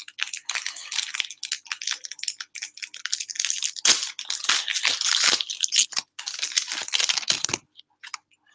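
Plastic wrapper of a Topps Premier Club football card pack being torn open and crinkled by hand, close to the microphone, in uneven crackling rips. It stops about a second before the end.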